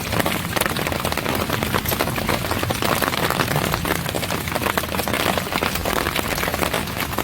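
Steady heavy rain, a dense patter of many drops striking a surface.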